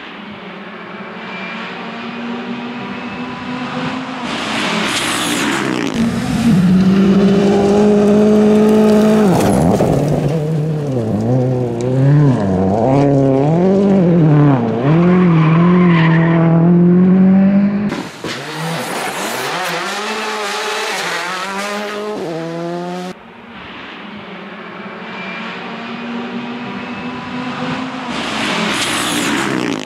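Rally car engines revving hard at speed in several back-to-back clips. Pitch climbs, holds high and wavers as the cars drive and slide, and the sound cuts sharply from one car to the next about 18 and 23 seconds in.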